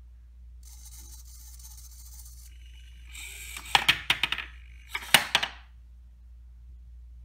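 Homemade Arduino kicking machine of 3D-printed parts on metal rods: a faint high whir for about two seconds, then a rattling clatter of sharp knocks as the kick mechanism strikes and the head falls, with a second short clatter about a second later.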